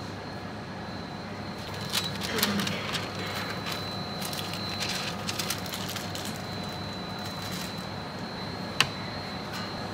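Paper wrappers rustling and crinkling with light clicks over a steady kitchen hum that carries a faint high whine, with one sharp click or tap near the end.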